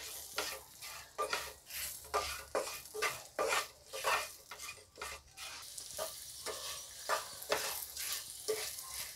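Wooden spatula stirring halved gunda berries and spice powders in a non-stick frying pan, a scraping stroke about twice a second, over a light sizzle of the hot oil.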